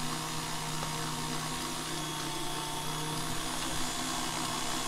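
KitchenAid stand mixer running steadily with a meat grinder attachment, its motor giving a steady hum as the auger pushes seasoned goat meat through the coarse plate on a second grind.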